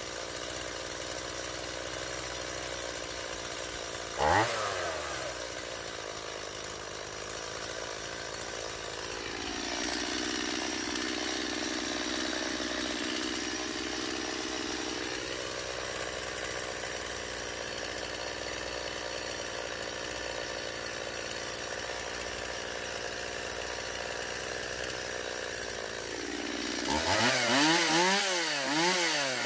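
Stihl MS 170 two-stroke chainsaw engine idling steadily, now running after its fuel line and carburettor were replaced. It blips up once about four seconds in, and its note shifts for several seconds in the middle. Near the end it is revved up and down several times in quick succession.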